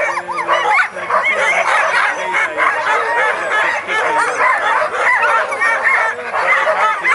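Many sled dogs barking and yelping at once in a dense, unbroken chorus of short high yips, the excited clamour of harnessed teams on their gang lines.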